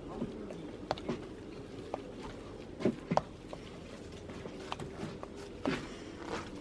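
Tableware being handled during a meal: a few sharp clicks and knocks at irregular intervals over a faint, steady low hum.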